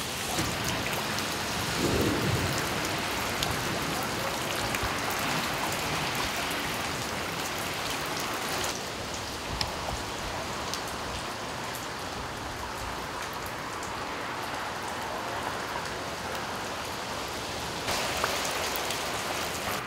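Heavy rain falling steadily in a thunderstorm, with a short low rumble of thunder about two seconds in. The rain turns duller from about nine seconds in and brightens again near the end.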